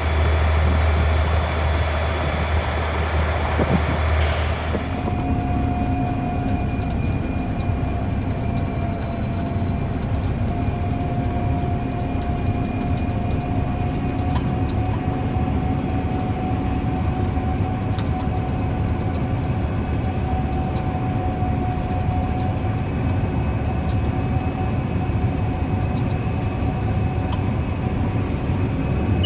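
Heavy vehicle machinery running steadily. A low engine drone comes first, then a short burst of noise about four seconds in, after which a steady rumble carries on with a sustained high whine over it.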